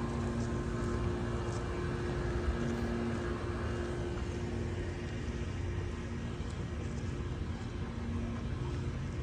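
A steady mechanical hum holding two constant notes over a low rumble.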